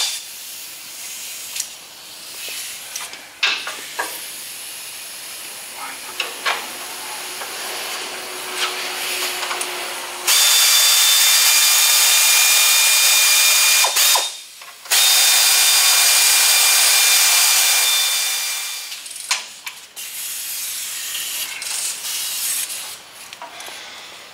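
Pneumatic air ratchet running in two long runs, one about ten seconds in and the next about a second after it stops, each a loud steady air hiss with a whine. It is driving in the bolts that hold a power steering gearbox to the truck frame. Scattered metal clicks and knocks of tools come before and after.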